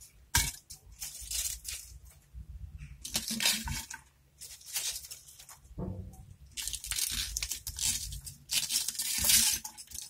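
Chopped raw white cabbage leaves rustling and crunching in irregular bursts as handfuls are dropped and pressed into a large glass jar.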